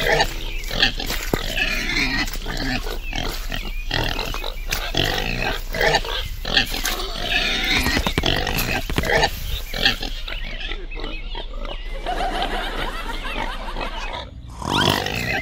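Pigs grunting and squealing in a near-continuous run of calls with short gaps between them, added as a sound effect to the toy pig figures.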